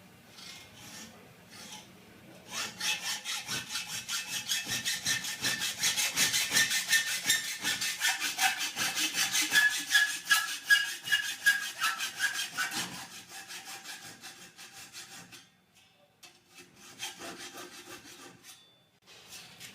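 Fine-toothed 32 TPI hacksaw cutting through thin steel cable tray held in a vise, in quick, even back-and-forth strokes. The strokes die away about three quarters of the way through, and a few lighter strokes follow near the end.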